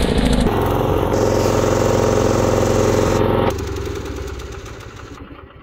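Old engine-driven welding generator running steadily, its engine note dropping sharply about three and a half seconds in and fading away over the next two seconds.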